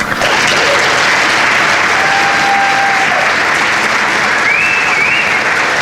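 Audience applause bursting out all at once and holding steady, with a few high cheers rising and falling over it.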